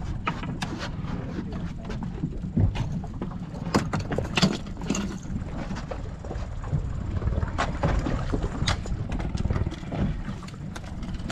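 Wind rumbling on the microphone aboard a small fibreglass fishing boat at sea, with scattered sharp knocks against the boat and water sloshing.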